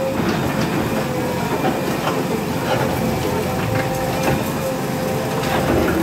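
JCB 3DX backhoe loader's diesel engine running steadily with a constant whine as its backhoe bucket tears at a brick wall, with scattered clatter and knocks of breaking brick and falling debris.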